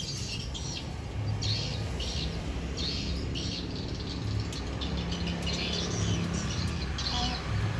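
A bird chirping over and over, short high chirps about two a second, above a steady low hum.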